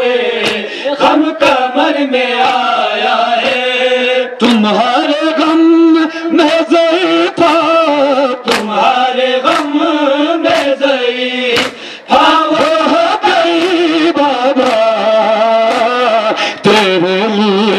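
Men chanting a Shia noha lament in a held, wavering melody, with the crowd's chest-beating (matam) slaps landing at a steady pace beneath it.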